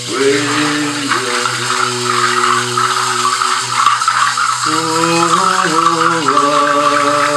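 A hand-held bundle rattle of dried shells shaken continuously, starting sharply at the outset. Under it a melody of long held notes slides from pitch to pitch over a steady low drone.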